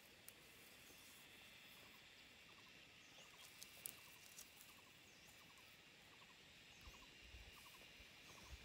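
Near silence: faint outdoor ambience with a soft repeated ticking in the background and a few soft low thumps near the end.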